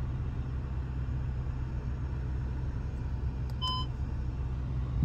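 2023 Audi RS7's 4.0-litre twin-turbo V8 running with a steady low drone. A single short electronic beep sounds about three and a half seconds in.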